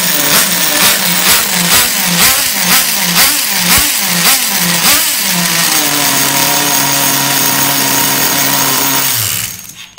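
3.5cc two-stroke nitro (glow) engine of an RC car running, rising and falling about twice a second for the first five seconds, then running steadily until the sound cuts off near the end.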